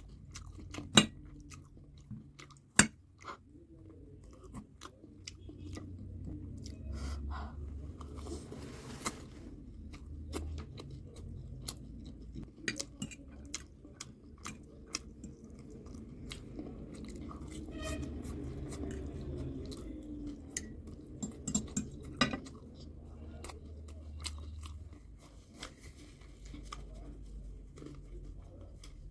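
Close-miked eating: chewing and crunching of food, with sharp clicks scattered through, the loudest about a second in and another near three seconds.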